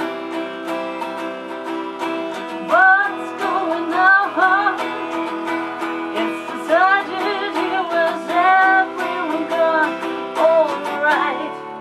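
Acoustic guitar strummed in a steady rhythm, with a voice singing several short phrases of wavering, held notes over it.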